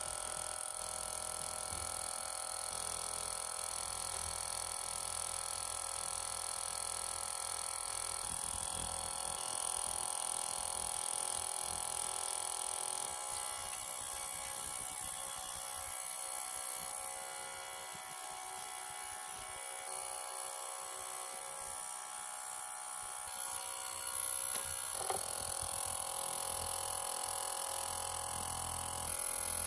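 Ultrasonic cleaner running with a steady high buzz as vintage fountain pen nibs and feeds soak in its tank. A single brief knock near the end.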